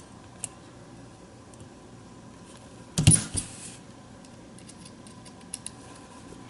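Small tools and parts being handled on a workbench: a few light clicks, and one loud clack with a brief rattle about three seconds in.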